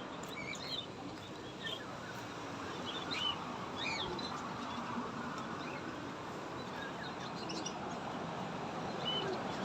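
Small caged birds chirping: scattered short, high chirps over a steady background hum of noise.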